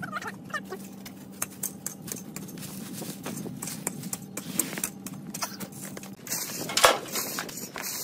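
Dry debris being cleared by hand from a brick kiln opening: scattered clicks and knocks of sticks, wire and brick fragments being pulled and dropped, over a steady low hum. About six seconds in the hum stops and a louder rustling scrape follows.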